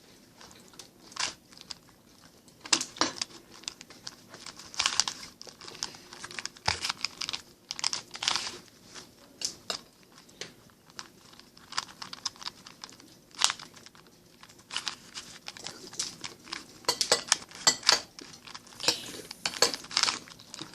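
Plastic 3x3 Rubik's cube being turned by hand: irregular clicks and scrapes as its layers rotate, coming in short flurries.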